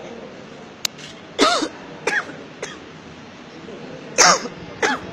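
A person coughing: two loud coughs about three seconds apart, each followed by a smaller one, with a sharp click just before the first.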